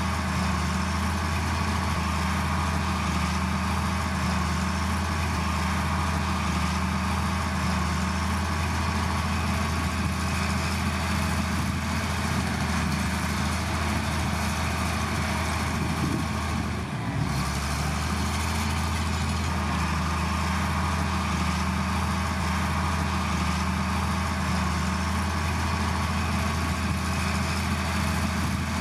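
Heavy diesel engine of earthmoving machinery running steadily with a deep, even drone, briefly dipping about seventeen seconds in.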